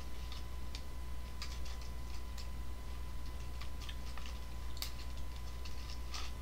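Scattered light clicks and rustles from hands handling a plastic drink bottle and a small cardboard candy package, irregular and a few per second, over a steady low hum.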